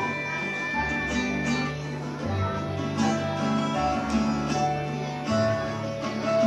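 Live acoustic guitar playing chords and melody notes, over a sustained bass line that changes about every second and a half.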